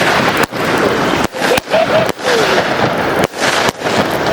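Consumer firework going off: a loud, continuous hissing crackle, broken by many brief dropouts.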